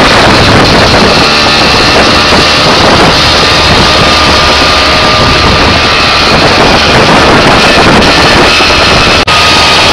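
Open tuk-tuk driving fast: a small engine running under heavy wind rush buffeting the microphone, loud and steady. The sound cuts out for an instant near the end.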